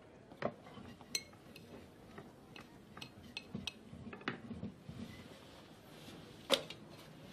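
Quiet restaurant clatter: scattered clinks of dishes and cutlery, a few ringing briefly, and a louder knock near the end.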